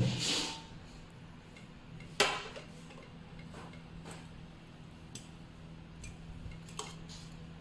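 Metal serving spoon clinking and scraping against a stainless steel pot and a plate as curry is dished out: a scrape at the start, one sharp clink about two seconds in, then a few lighter taps. A low steady hum runs underneath.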